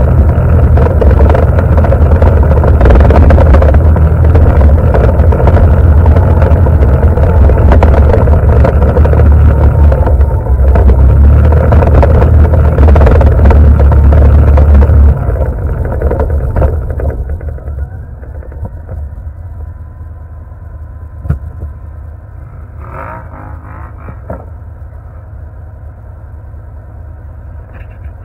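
ATV engine running loud and steady while riding at speed, then dropping off about halfway through and settling into a quieter steady idle. Near the end a second ATV's engine is heard coming up close.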